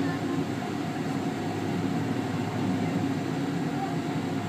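Steady engine drone heard inside the cabin of a McDonnell Douglas MD-82 as it taxis, from its rear-mounted Pratt & Whitney JT8D turbofans, a low rumble with a faint steady hum over it.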